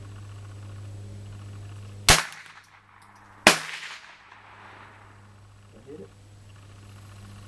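.22 rifle fired twice, about a second and a half apart, each shot a sharp crack followed by a short echoing tail.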